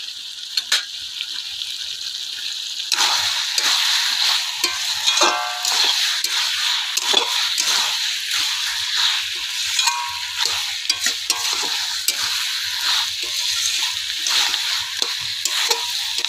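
Chicken and potato pieces sizzling in a karahi as they fry dry in oil and spices, with no water added yet, while a long metal spatula stirs and scrapes the pan. The sizzle and scraping get louder about three seconds in, when the stirring picks up.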